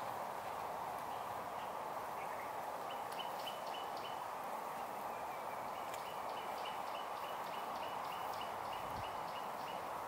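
A bird calling a quick series of short, even high notes, about four a second: a brief run about three seconds in and a longer one from about six seconds to near the end. Underneath is a steady rushing background noise.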